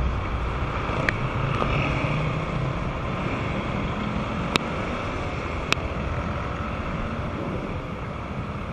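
Wind rushing over the microphone with the engine and road noise of a Honda Vario 125 scooter riding through traffic. Two sharp clicks about a second apart stand out a little past the middle.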